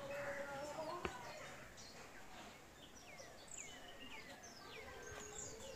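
Birds chirping faintly, with a run of short chirps that fall in pitch in the middle. A single sharp knock comes about a second in.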